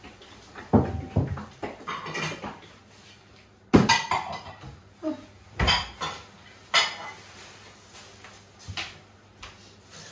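Dishes clattering as a dishwasher is unloaded: plates and cutlery knocking together and set down on the counter in separate clatters every second or two, the loudest about four seconds in.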